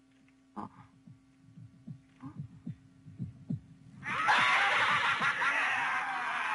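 Heartbeat sound effect: low thumps that quicken over about three seconds. About four seconds in, a sudden loud, dense shrill wash of sound with many wavering high tones cuts in and carries on.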